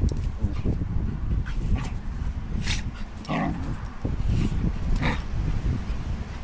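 Dogs play-fighting: a bassador and an Australian shepherd tussling, with a few short whining yips among the scuffling.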